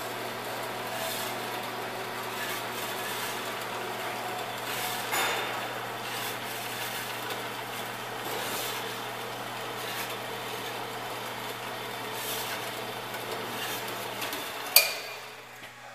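Jet HVBS-7MW horizontal band saw running steadily with an even motor hum, its 3/4 HP single-phase motor driving the blade with no workpiece in the vise. About a second before the end there is a sharp click, and the running sound dies away after it.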